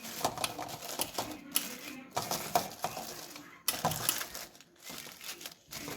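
Irregular light clicks and taps of metal kitchen cookware, a few per second, easing off for a couple of seconds near the end.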